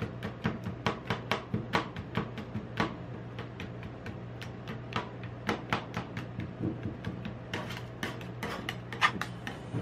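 Two metal spatulas chopping and scraping ice cream base on the steel cold plate of a rolled ice cream machine: quick, irregular metal-on-metal clacks and scrapes, with one sharper clack near the end. A steady low hum runs underneath.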